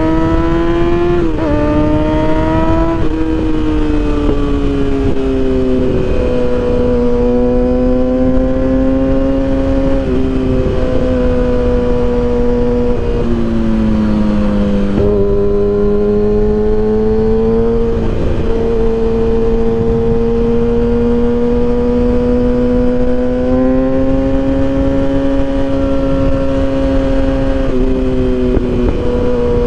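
2012 Kawasaki ZX-6R's 636 cc inline-four running loud through an M4 exhaust with the baffle removed, under way at high revs. The engine note holds steady for seconds at a time, then steps down and climbs back several times, as with gear changes and throttle changes.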